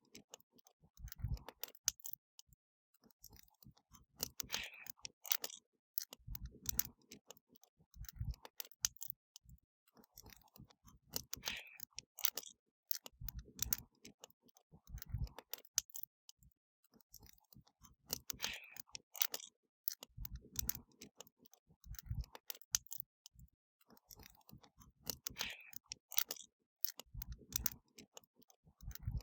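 Wood fire crackling: a steady stream of irregular sharp snaps and pops, with softer low thuds and brief hissy flares coming at regular intervals. The same pattern repeats about every seven seconds, as a short looped recording does.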